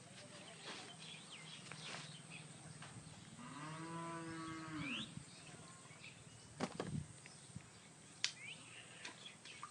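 A cow mooing once: a single drawn-out moo that rises and then falls in pitch, about three and a half seconds in. A few sharp clicks and faint short chirps come before and after it.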